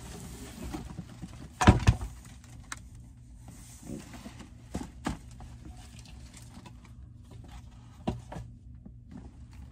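Cardboard sneaker box being handled and set down: scattered knocks and bumps, the loudest a pair of thumps about two seconds in, with light rustling between, over a faint steady low hum.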